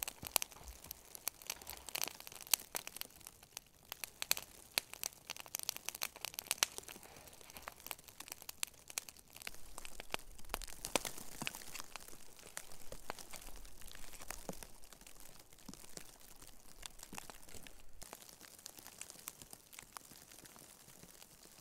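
Irregular crackling, snapping and crunching, thick and fast for the first half and sparser later, of branches, brush and snow being handled while building a shelter.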